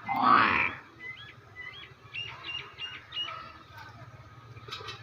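Small birds chirping, a quick series of short repeated notes, after a brief loud sound right at the start.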